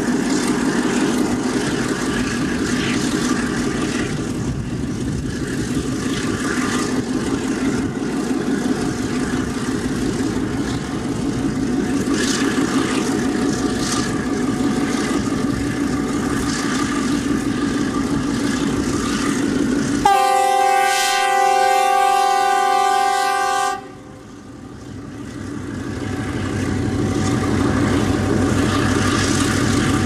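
Chinese diesel locomotive's engine running steadily as it hauls a train of loaded wagons. About two-thirds in, a loud multi-tone horn blast sounds for nearly four seconds and cuts off suddenly. After it the engine sound drops away, then builds back up.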